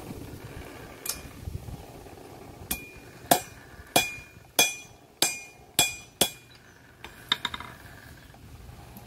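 Blacksmith's hammer striking iron on an anvil, a steady run of about seven ringing blows roughly two a second, followed by a few lighter taps.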